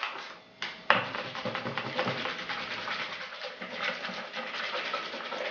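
A whisk beating batter in a bowl as flour is worked in to thicken it: a fast, steady scratching that starts with a sharp knock about a second in.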